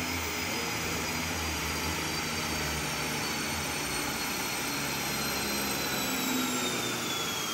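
Porsche 911 on a chassis dyno just after a full-throttle pull: a steady rushing noise with the engine running low underneath, and a faint high whine that falls slowly in pitch as the rollers and drivetrain coast down.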